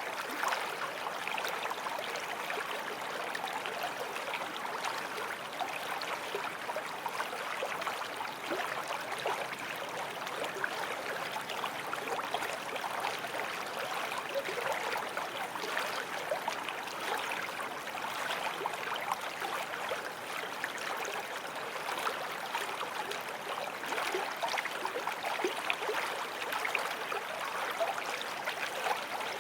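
Forest stream flowing steadily over stones, a constant rush of water with many small splashes and gurgles.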